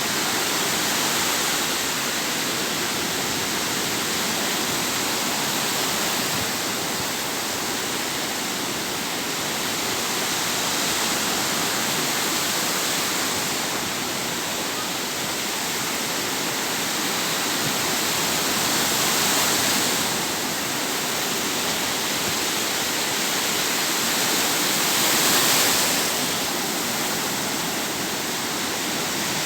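Sea waves breaking and washing on the shore: a continuous surf hiss that swells and eases every several seconds, loudest in two surges in the later part.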